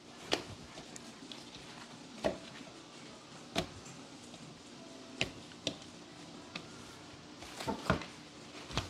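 Quiet handling of raw crappie fillets as they are laid out and patted dry with paper towels on a plastic cutting board: scattered short, soft taps and paper rustles, a few coming close together near the end.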